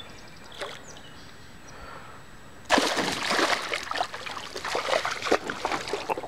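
Northern pike thrashing at the water's surface beside a canoe as it is scooped into a landing net. After a few quiet seconds, a burst of loud, choppy splashing starts a little before halfway and lasts about three and a half seconds.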